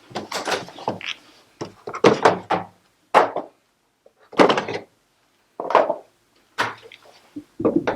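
A series of separate knocks and clatters, one every second or so, from washing machine parts and tools being handled during disassembly.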